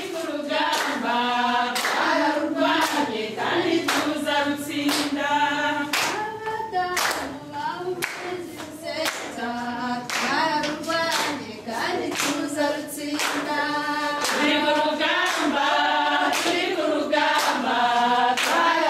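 A group of women singing together in chorus, with hands clapping in time to the song.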